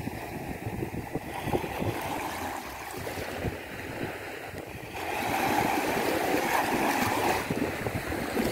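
Ocean surf breaking and washing on a beach, a steady rush that swells into a louder surge about halfway through and holds for a couple of seconds before easing. Wind rumbles on the microphone.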